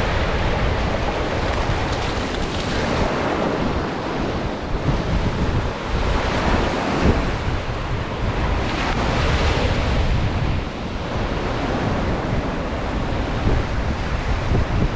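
Surf breaking and washing on a beach, swelling and easing every few seconds, with wind buffeting the microphone in a low rumble.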